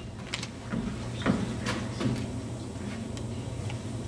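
Footsteps of performers moving across a wooden stage: a few light, scattered knocks over a steady low hum.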